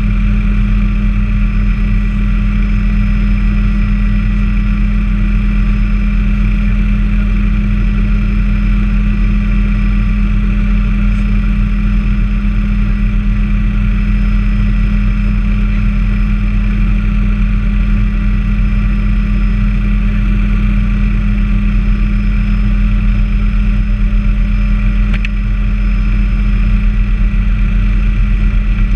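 Bell 206A helicopter's Allison 250 turboshaft engine and rotor running steadily, heard inside the cabin: a constant low drone under a steady high turbine whine.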